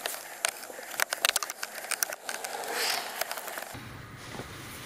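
Screwdriver backing out a screw from the side of a Honda Civic's center console: a run of irregular sharp clicks and small rattles, with a short scrape about three seconds in, going quieter after nearly four seconds.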